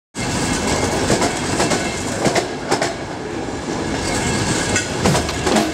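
A passenger train running along a platform: a steady rumble of wheels on rails with irregular clacks over the rail joints.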